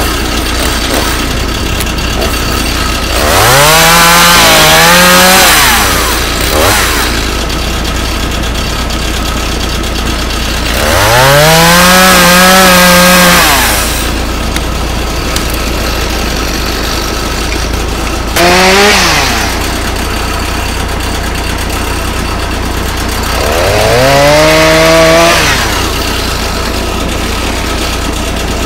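Chainsaw revved to full throttle four times: three runs of two to three seconds each, the pitch rising, holding and dropping back, and one short blip about two-thirds of the way through. It falls back to a steady idle between the revs.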